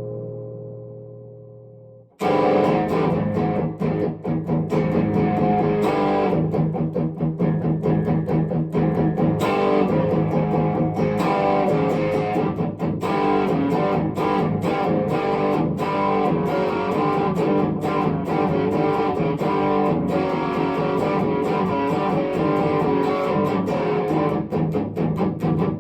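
Epiphone 1959 Les Paul Standard electric guitar played through an amp: a ringing chord fades away, then after a brief pause about two seconds in, a continuous run of quickly picked notes and chords.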